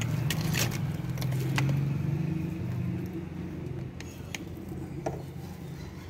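An engine running with a low hum that fades after about three seconds. A few sharp clicks come as plastic CPVC pipe fittings are handled.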